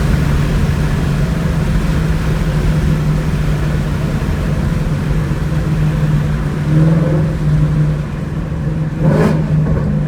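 2018 Mustang GT's 5.0 V8 running through long-tube headers and a Borla catback exhaust while driving, with a steady low drone. A short sharp burst comes about nine seconds in.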